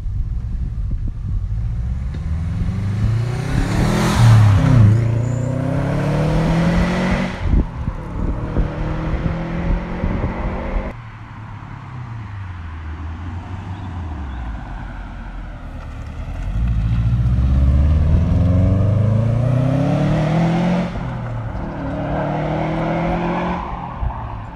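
2005 Subaru Impreza WRX STI's turbocharged 2.5-litre flat-four accelerating hard past, the revs climbing and dropping again with each gear change. It happens twice: one pass in the first seconds, then, after a sudden cut about eleven seconds in, a fainter approach that builds into a second pass.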